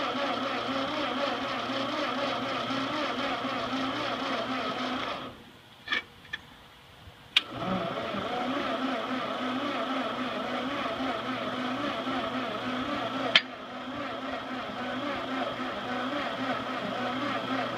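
Ford 8N tractor's starter cranking the four-cylinder flathead engine without it firing. It cranks in two long runs, broken after about five seconds by a two-second pause with a few sharp clicks. The battery's voltage drops too much under the starter's load.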